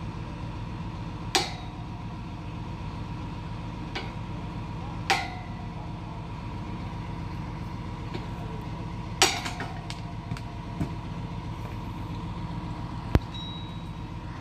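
An engine running steadily, with sharp metallic clanks every few seconds from work on the well's steel pipes; some clanks ring briefly, and the loudest comes about nine seconds in.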